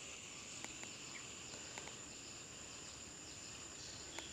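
Faint steady high-pitched insect drone, with a few faint chirps and small ticks over it.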